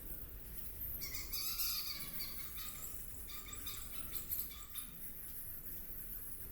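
Birds chirping and calling in a run of quick wavering notes for a few seconds, over a steady low rumble.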